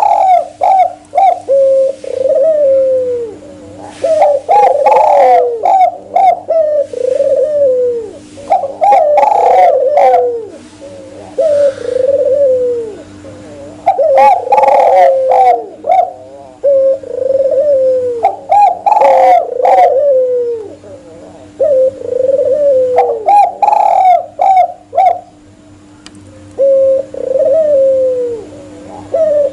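Spotted dove and albino Barbary dove cooing, with repeated phrases of several notes that fall in pitch at the end, coming every few seconds. A faint steady hum and a few sharp clicks lie underneath.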